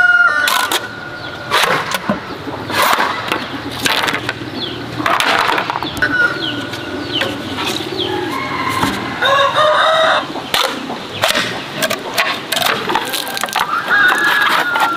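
A large knife chopping into and splitting a green bamboo pole: a run of sharp cracks and knocks, about one a second. A rooster crows near the middle, and small birds chirp now and then.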